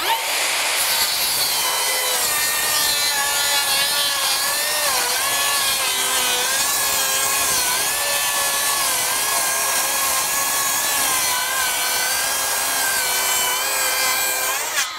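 Makita 40V XGT brushless 7-1/4-inch rear-handle circular saw making a long full-depth cut through pressure-treated 4x4 lumber. The blade's whine wavers slightly under load but holds its speed, with very little bogging. It drops away just before the end as the blade clears the wood.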